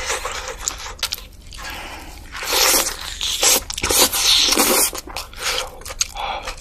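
Close-miked eating: a run of crunchy bites and chewing, densest in the middle.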